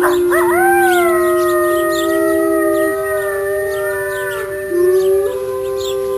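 A group of wolves howling in chorus: several long, overlapping howls at different pitches, some rising and bending. One low howl stops about three seconds in and another starts near the five-second mark.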